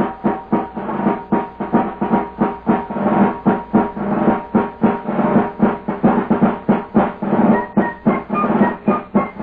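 Radio-drama theme music: a drum beats a fast, steady rhythm of about three strokes a second under held chords. A higher melody comes in near the end.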